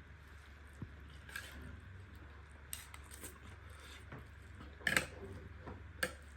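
Eating from a plate: scattered clinks and scrapes of a spoon against a dish over a low steady hum, the loudest clatter about five seconds in and another short one about a second later.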